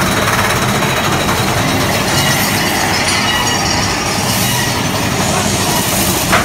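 Big Thunder Mountain Railroad mine-train roller coaster running on its track through a tunnel: a steady loud rumble of wheels and rushing air, with one short sharp clack near the end.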